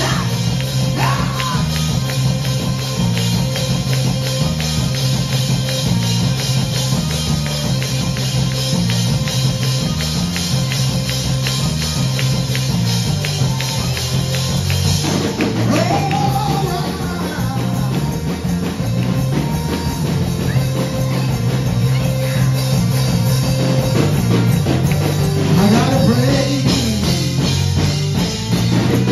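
Live church praise band playing an upbeat song with a steady beat over a bass line. A voice rises briefly over the music about halfway through and again near the end.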